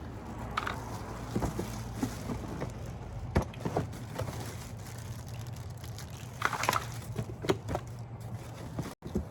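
Parts of a new electric pressure washer being unpacked and handled: rustling packaging with scattered light knocks and clicks, over a faint low steady hum.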